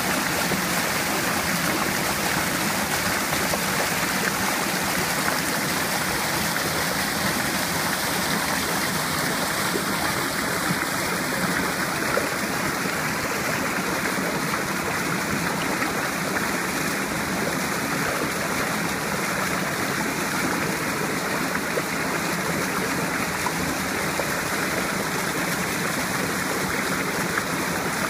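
Mountain creek rushing steadily, white water pouring and splashing over boulders.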